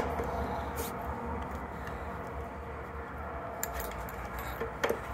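A few light clicks and taps from handling the Boosted Rev scooter's handlebar, stem and cable as the cable is slipped down into the steering stem.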